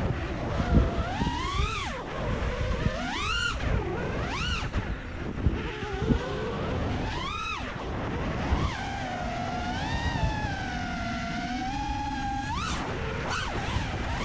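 FPV freestyle quadcopter's motors and propellers whining, the pitch swooping up and down sharply with repeated throttle punches. Near the end a few seconds of steady whine give way to a sudden rise. Low wind rumble runs underneath.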